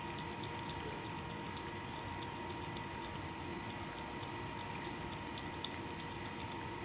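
Cat lapping water from a plastic basin: soft, regular laps about three a second over a steady background hiss.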